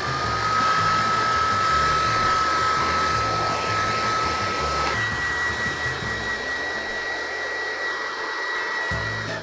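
Handheld hair dryer running steadily, a rush of air with a whine that steps up in pitch about halfway through.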